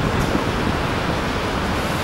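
Steady outdoor noise of wind buffeting the microphone over road traffic.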